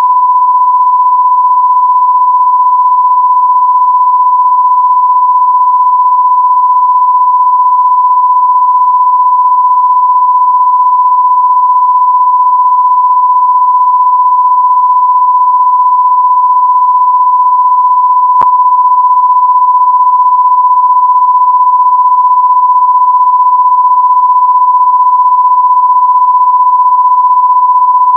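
Loud, steady, unbroken pure sine tone at about 1,000 hertz, one pitch held without change, with a single faint click about eighteen seconds in.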